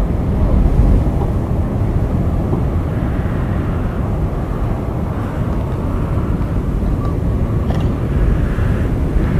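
Steady, loud, low rumbling roar with a hiss above it, unbroken throughout.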